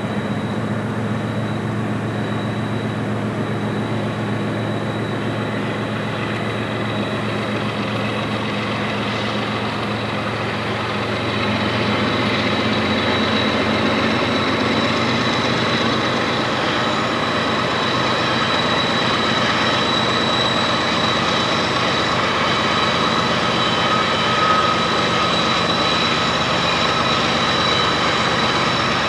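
Diesel locomotives approaching, their engines running steadily and growing louder about twelve seconds in.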